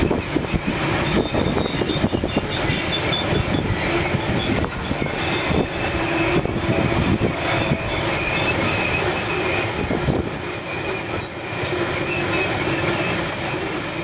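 A long narrow-gauge freight train of lidded concentrate wagons rolling steadily past close by. Its steel wheels rumble and click over the rail joints, with a drawn-out squeal over the top.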